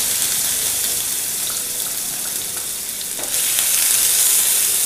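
Sliced onions sizzling in hot oil in a nonstick frying pan as they are stirred with a wooden spatula; the sizzle grows louder about three seconds in.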